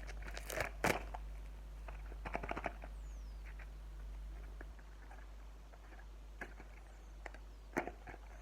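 Short clusters of crinkles and clicks from a toy's blind-packet wrapper being torn open by hand, with pauses between.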